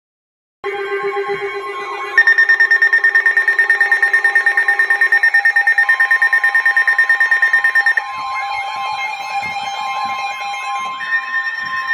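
Electronic alert tones, several sounding at once, starting about half a second in. From about two seconds a loud, rapidly pulsing tone beats about eight times a second, giving way near eight seconds to quieter warbling tones.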